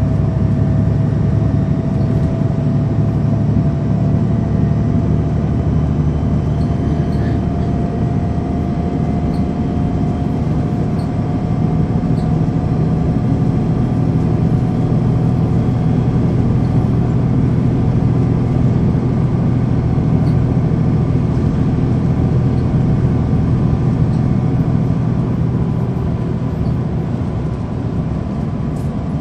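The Cummins ISL9 inline-six diesel of a 2009 NABI 416.15 transit bus, heard from inside the bus, running steadily with a deep drone. A thin whine rises slowly in pitch over the first ten seconds or so, then holds level.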